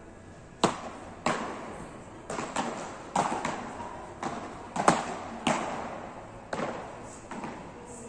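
Beach tennis paddles striking the ball: a string of sharp hits at uneven intervals, the loudest about half a second in and again near five seconds, each echoing in a large hall.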